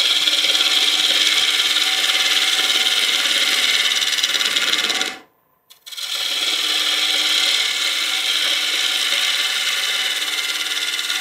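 Carbide roughing tool with a square-edged insert scraping the outside of a spinning wooden bowl blank on a wood lathe: a steady, dense scraping hiss as shavings come off. The sound cuts out for about half a second a little over five seconds in, then carries on.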